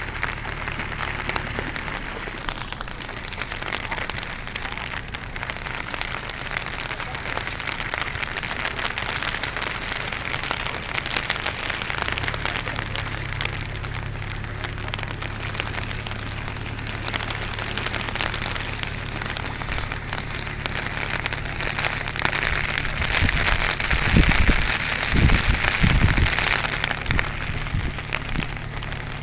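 Heavy rain falling in a steady hiss. A low hum joins about twelve seconds in, and a few low thumps come near the end.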